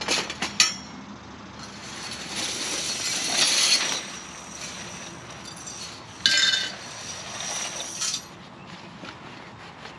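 Metal parts of a portable disc golf basket clinking and rattling as they are handled: a few sharp clinks at the start, a longer rattle a couple of seconds in, and a short ringing clink around six seconds in.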